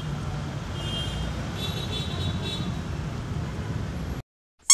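Steady background rumble of road traffic, which cuts off abruptly near the end, followed by a brief high chirp.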